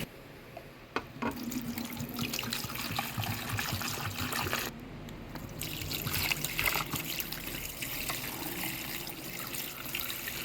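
Water running and splashing into the tub of a small portable mini washing machine.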